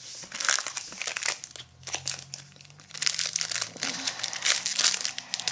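Foil wrapper of a 2001 Topps Gallery baseball card pack crinkling as it is pulled from the box and handled, in two spells: one just after the start, and a longer one from about three seconds in.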